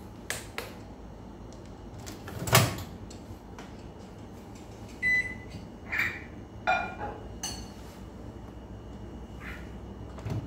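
Electrolux microwave oven being loaded and set: light clicks near the start, a solid thump as the door shuts about two and a half seconds in, then a run of short keypad beeps between about five and seven seconds in.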